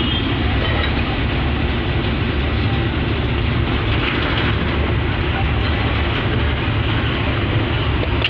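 Steady rumbling noise at an even level, with no rising or falling siren tone.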